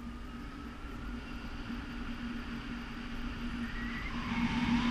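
Wind rushing over the action-camera microphone of a paraglider in flight: a steady rush with a steady low tone underneath, growing louder near the end.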